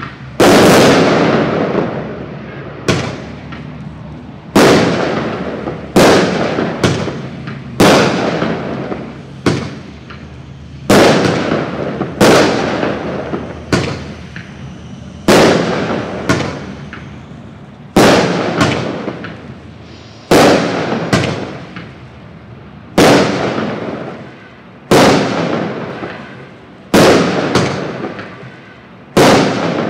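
Black Cat Two Minute Fireworks Show, a 63-shot consumer fireworks cake, firing shot after shot: about one sharp bang every second and a half, each dying away in an echoing tail.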